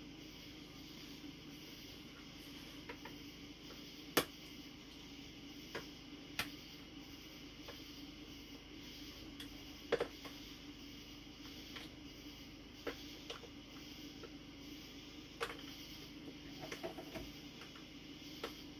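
Scattered small plastic clicks and taps, about a dozen at irregular intervals and the sharpest about four and ten seconds in, from hard-hat parts being handled and fitted together, over a steady low hum.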